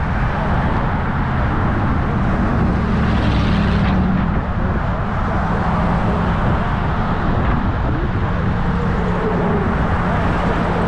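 Steady road traffic noise with engine hum, a vehicle passing close by about three to four seconds in.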